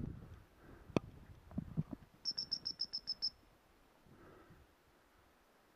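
A quick run of about ten short, high, evenly spaced beeps at one pitch, lasting about a second, from a hunting dog's beeper collar, over low rustling and thuds of walking through rough grass, with a sharp snap about a second in.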